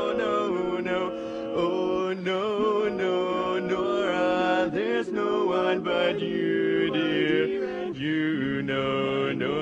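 Male barbershop quartet singing a cappella in close four-part harmony, holding sustained chords that move every second or so.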